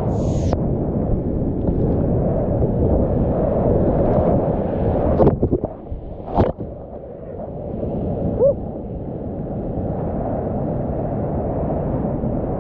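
Whitewater rapids rushing loudly, heard from a kayak in the river, with a few sharp knocks about halfway through.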